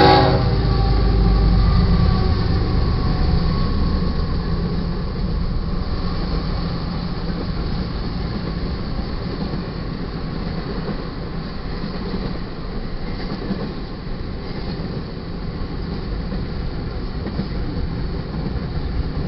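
GE ES44C4 diesel locomotive running past at close range, its low engine rumble loudest in the first few seconds, giving way to the steady rumble and clatter of double-stack container well cars rolling over the rails.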